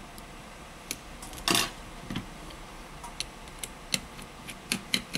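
A precision screwdriver and tweezers clicking and tapping on the opened frame of a Xiaomi Mi 9 SE smartphone while its inner-cover screws are taken out. The clicks are sharp and irregular, with one louder clatter about one and a half seconds in.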